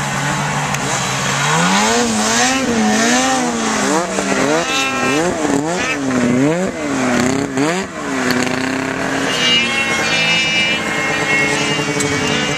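Snowmobile engines running. One engine's note holds steady, then rises and falls over and over, about once a second, as the throttle is worked, before settling to a steady drone. A second, higher-pitched engine note joins near the end.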